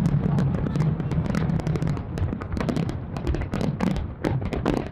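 Aerial fireworks bursting over the sea: a continuous low rumble of booms with many sharp crackles on top, easing off slightly toward the end.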